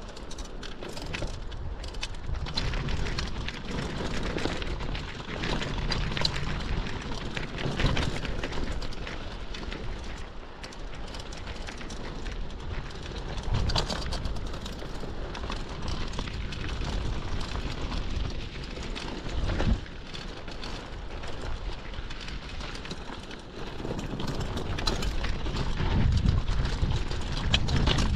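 Mountain bike rolling fast down a rocky dirt trail: tyres crunching over gravel and the bike rattling and knocking over bumps, with wind rushing over the microphone. It gets louder near the end.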